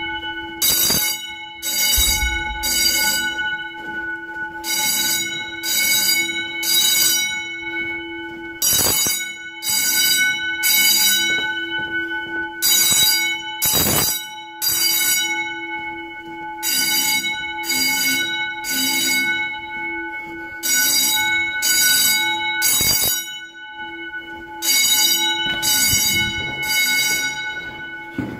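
Edwards 439-10AWC fire alarm bells ringing continuously during a fire alarm test, a steady clangorous ring with several pitches. Frequent short rustling bursts come from the phone being carried, heard over the ring.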